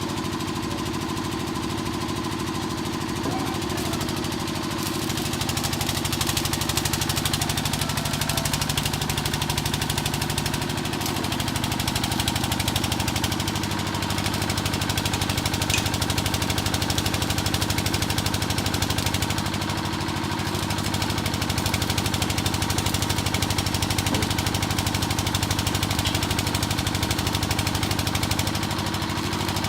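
An engine running steadily at an even speed. It gets a little louder about six seconds in and dips briefly about two-thirds of the way through.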